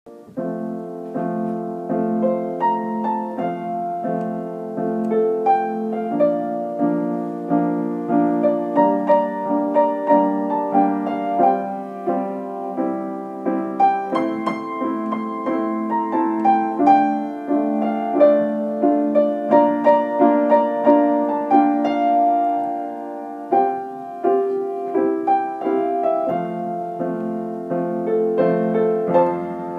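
Solo piano playing an original composition: a steady flow of struck notes over held chords, mostly in the middle register with little deep bass.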